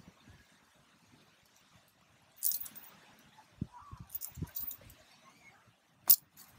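Slackline hardware and webbing being handled and packed away: a brief rustle with light metal clinks from the carabiners and line lock, a few soft knocks, and one sharp, louder click near the end.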